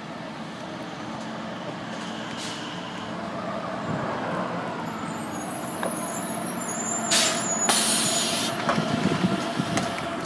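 City transit bus pulling up to the stop, its engine getting louder as it comes in. About seven and eight seconds in come two short, sharp hisses of air as its air brakes set.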